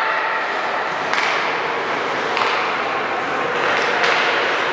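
Basketball game in a gym: three sharp, echoing thuds of the ball hitting the court, spread over a few seconds, over a steady murmur of crowd and players.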